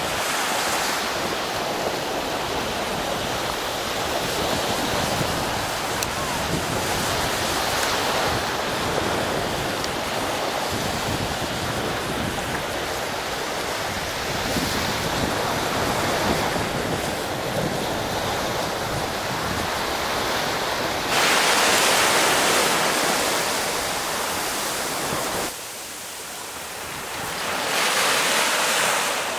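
Small waves washing up a sandy beach, a steady hiss of surf with wind on the microphone. The wash swells louder about two-thirds of the way through, drops off suddenly, then swells again near the end as a wave runs up close.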